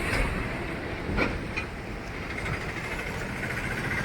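Steady vehicle and road noise, with a few brief sharp sounds about a second in.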